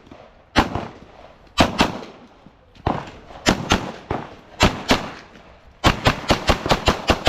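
Pistol shots during a practical-shooting stage: pairs and short strings with pauses between them as the shooter moves, then a rapid run of about eight shots near the end.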